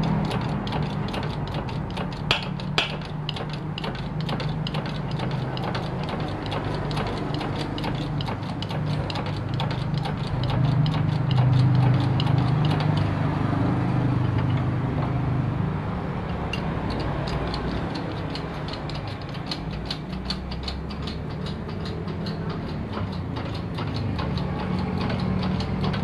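Hand-tool work on a Yamaha 15 hp outboard engine being stripped for a bearing change: a rapid run of small metallic clicks, with two sharper knocks about two and a half seconds in.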